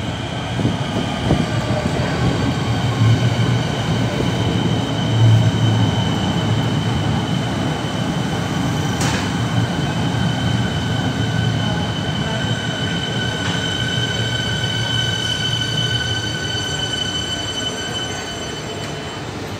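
Siemens Nexas electric suburban train pulling into an underground platform and braking to a stop: a low rumble of wheels on rail under several steady high-pitched tones that fade away near the end as it halts. A single sharp click about nine seconds in.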